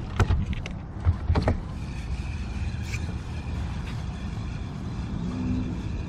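A few sharp knocks and clatters in the first second and a half as a landing net is handled aboard a bass boat. After that comes a steady low rumble with a faint high, steady whine from a small electric motor.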